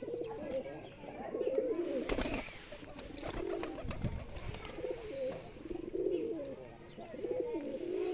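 Domestic pigeons cooing, low warbling coos repeating every second or so, with a brief rustling noise a little past two seconds in.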